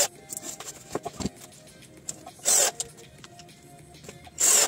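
Cordless drill driving screws through thin sheet metal in short harsh bursts, three in all, each under half a second, with light clicks and a dull knock between them over quiet background music.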